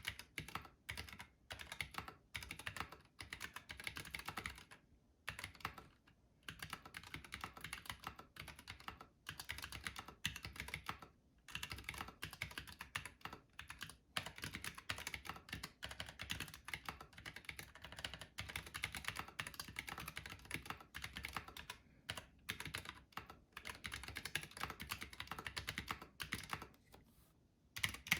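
Continuous fast typing on a Planck Rev 6 ortholinear mechanical keyboard fitted with lubed AEBoards Naevy tactile switches and PBT keycaps, a dense run of keystroke clacks broken by a few short pauses.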